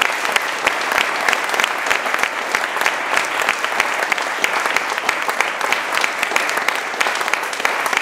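Audience applauding steadily, a roomful of people clapping.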